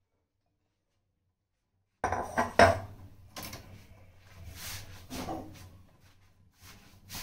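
Near silence for about two seconds, then kitchen clatter: a quick run of knocks and clinks of dishes and containers being handled on the counter, loudest about two and a half seconds in, followed by a few scattered lighter knocks.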